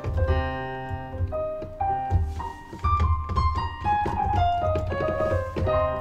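Piano introduction to a Turkish folk song (türkü): single notes stepping downward in a melodic run over repeated low bass notes.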